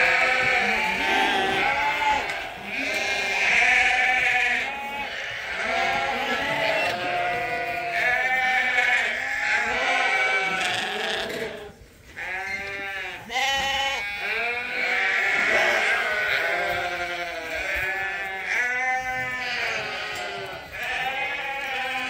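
A flock of ewes and lambs bleating without a break, many calls overlapping at different pitches, with a brief lull about twelve seconds in.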